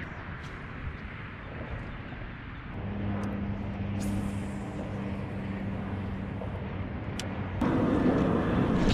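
Road traffic noise with a steady low engine hum that sets in about three seconds in; the noise grows louder shortly before the end.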